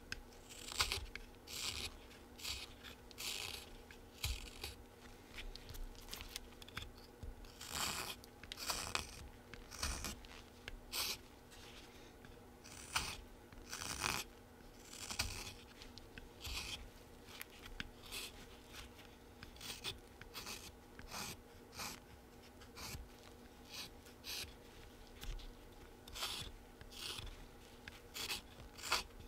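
Folding whittling knife (Flexcut Whittlin' Jack) slicing shavings off a small wooden bee blank: a string of short, irregular scraping cuts, a second or less apart, as pushing-and-scooping strokes whittle the tail to a point.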